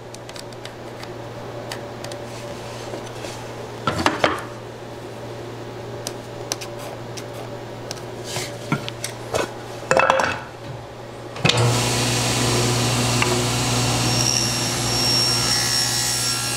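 Small knocks and rubbing of wood and a pencil on the steel top of a SawStop table saw. About two-thirds of the way in the saw is switched on and runs steadily with a high whine.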